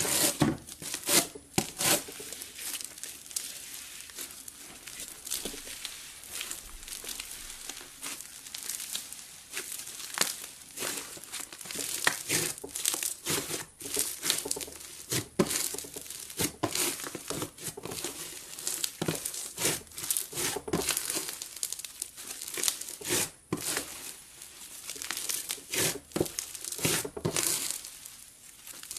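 Slime being squeezed, folded and stretched by hand, giving a steady run of small sticky pops and crackles.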